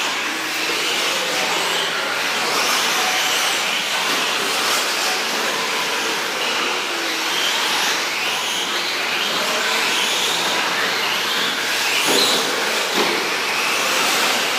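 Several 1/10-scale electric 4WD short course RC trucks racing on a dirt track: the high whine of their electric motors rises and falls in pitch as they speed up and slow down. There are a couple of sharp knocks about twelve seconds in.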